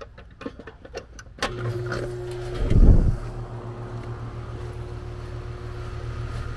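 Air-conditioning condensing unit starting up under power after the disconnect goes back in: a few sharp clicks, then about a second and a half in a steady electrical hum of the compressor and condenser fan motor comes on and holds. About a second later there is a loud low thump.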